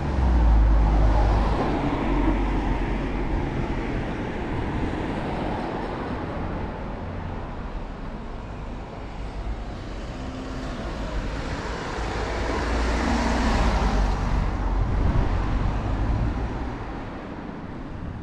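Road traffic on a town street: cars passing, their tyre and engine noise swelling loudest just after the start and again about thirteen to fifteen seconds in.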